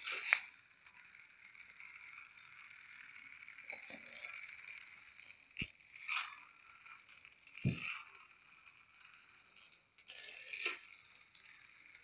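A small battery-powered light-up toy car running along a flexible plastic Magic Tracks track, with a steady high-pitched whir and rattle. A few short knocks and one duller thump come in between.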